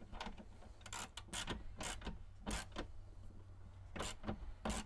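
Seat swivel hardware being worked on: a string of short, irregularly spaced scrapes and clicks of metal parts and tools.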